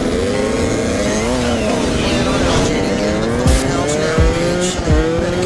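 Dirt bike engine pulling under acceleration, its pitch climbing slowly and steadily, with a brief drop about a second in.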